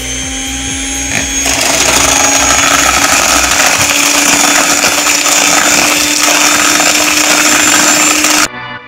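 Electric blender running steadily while beating butter with sugar and salt, a constant motor whine that gets louder about a second and a half in. It cuts off suddenly near the end.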